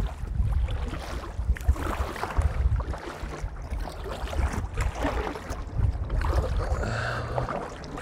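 Strong wind gusting over a clip-on lavalier microphone as a low, uneven rumble, with choppy lake water lapping against the kayak's hull.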